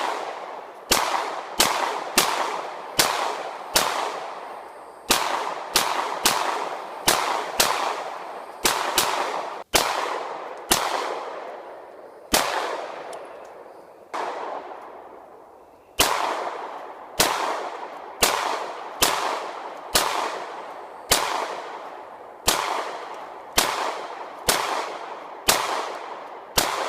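Glock 26 9mm pistol fired shot after shot from a 33-round extended magazine, one to two shots a second, each followed by a long echo. The pace slows to a few spaced shots in the middle, then picks up again.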